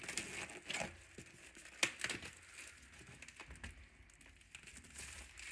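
Thin plastic wrapping film being peeled off a cardboard box, crinkling in irregular crackles, with one sharp crackle about two seconds in.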